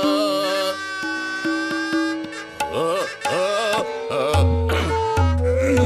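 Indian classical-style music with tabla and a sliding, gliding melody line, with a deep bass note joining about four seconds in.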